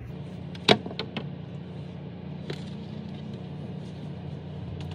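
A few sharp clicks and knocks, about a second in, as a small CrunchLabs tripwire toy is set in place on a refrigerator door shelf, over a steady low hum.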